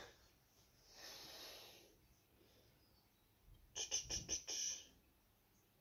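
A faint breath out, then a quick run of about six soft clicks and rustles as a clear plastic hydrometer tube is handled.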